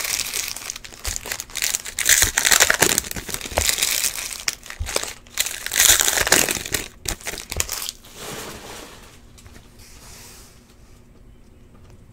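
Trading-card pack wrappers crinkling loudly in bursts as hands crumple them, dying away about eight seconds in.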